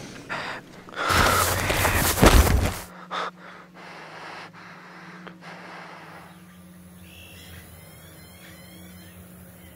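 A man gasping and breathing hard, heard close up: one loud rush of breath lasting about two seconds. After it come a low steady hum and fainter breathing.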